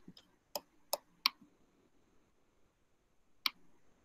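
Computer mouse clicking: a quick run of about five clicks in the first second and a half, then one more click about three and a half seconds in.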